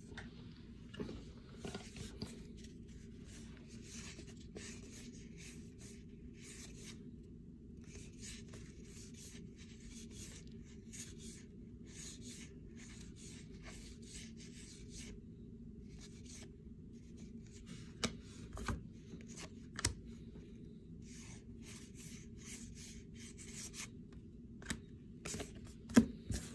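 Baseball cards being thumbed through by hand, stiff card stock sliding and rubbing against card stock in many short scratchy strokes over a steady low hum. A few sharp taps come about two-thirds of the way in and again near the end.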